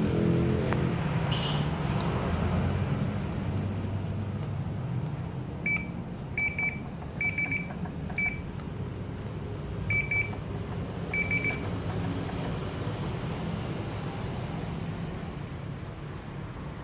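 A series of short electronic beeps, about eight at irregular intervals, some in quick pairs, over a steady low rumble.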